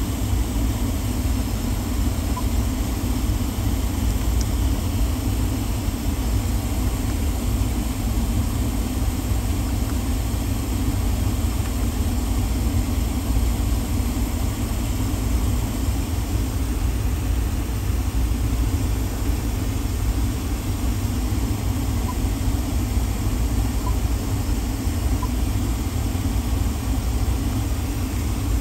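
Supercharged 3.0 L V6 idling steadily, heard from inside the cabin as a low, even rumble.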